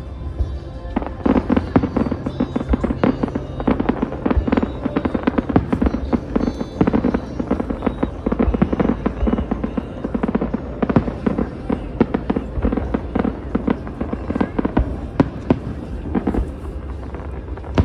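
Aerial fireworks going off in a rapid, dense run of crackling pops and bangs, thinning out near the end.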